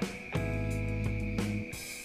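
Background music: held chords with light drums.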